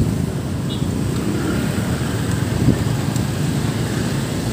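Steady road traffic: motorcycles and cars running past as they cross the reopened railway crossing.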